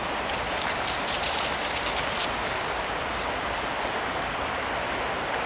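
A steady rushing hiss of outdoor noise, with a few crisp crunching steps through frosty grass in the first two seconds.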